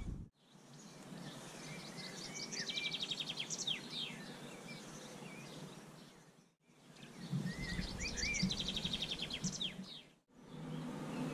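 A songbird singing twice, each time a short phrase of a few whistled notes around a fast, even trill, over a faint outdoor hiss. The sound drops out briefly between the two phrases.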